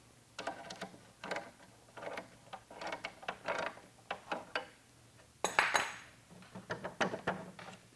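Metal clinks and scrapes of a wrench working nuts down threaded steel rods to clamp a fibreglass mould, in a string of short irregular clicks, with a louder metal clatter about five and a half seconds in.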